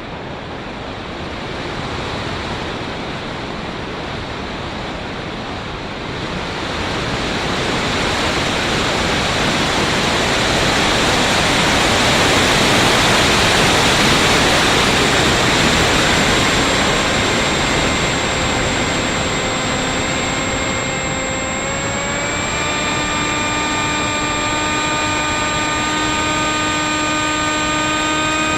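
Rushing wind noise over the airframe of a Bixler v1.1 RC foam plane in flight, loudest near the middle. From about two-thirds in, the whine of its 2216 2000kv brushless motor comes in and climbs slowly in pitch as the throttle is opened.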